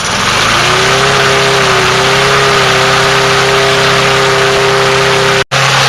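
Gasoline Craftsman push mower engine coming up to speed, then running steadily at wide-open throttle, its governor set to allow full throttle. The sound cuts out for an instant near the end.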